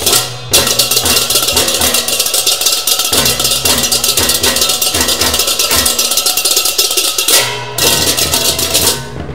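Balinese gamelan baleganjur ensemble playing loudly: cengceng kopyak hand cymbals clash in fast interlocking rhythms over ringing gongs and low drum strokes. The cymbals drop out briefly about three-quarters of the way through, then come back in.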